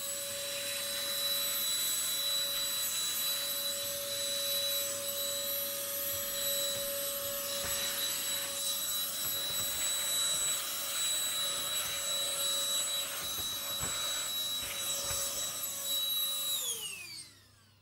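Black+Decker cordless handheld vacuum running steadily, a high motor whine over rushing air, as it sucks dust out of the inside of an old computer. Near the end it is switched off and the whine falls away as the motor spins down.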